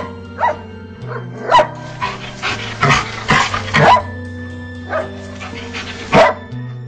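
A dog barking repeatedly as it attacks a large snake, the barks coming thickest in the middle. Steady background music plays under it.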